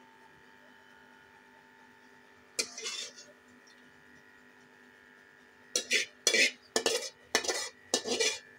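Metal spoon scraping and knocking against the inside of a metal pan while the last of the oil and masala is scraped out: one short scrape about two and a half seconds in, then a quick run of knocks and scrapes from about six seconds on.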